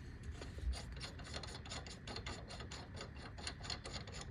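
Hand ratchet wrench clicking in a rapid, even run, several clicks a second, as a bolt is turned by hand.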